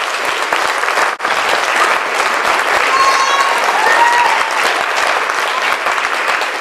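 Large group applauding: sustained, dense clapping from many hands, with a brief break about a second in.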